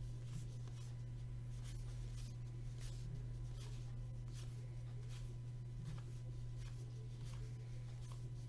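Baseball trading cards being flipped through by hand, irregular soft papery slides and flicks, over a steady low electrical hum.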